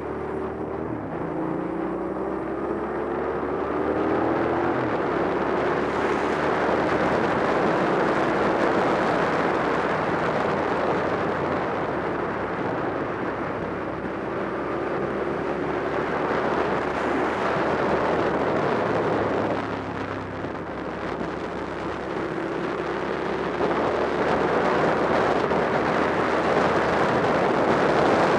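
Onboard sound of a motorcycle ridden at speed: heavy wind rush over the camera mic with the engine running underneath. The engine pitch rises in short steps through the first few seconds. The sound eases off briefly about two-thirds of the way through, then grows louder again near the end.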